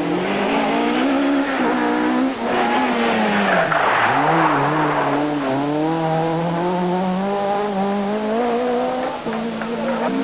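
Renault Clio Maxi Kit Car rally car's two-litre four-cylinder engine at high revs as it passes. The revs fall as it slows into the corner about four seconds in, with a burst of tyre noise. Then they climb steadily as it accelerates away, dropping once at a gear change near the end.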